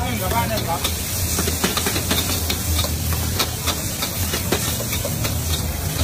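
Food sizzling in deep hot oil in a large wok, with a metal spatula scraping and clinking against the wok again and again. A steady low hum runs underneath.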